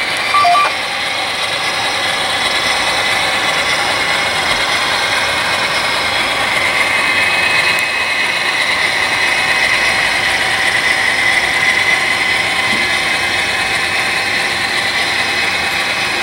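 HO-scale model freight train running past, a steady mechanical whir and clatter from the locomotives' motors and gear drives and the wheels on the rails.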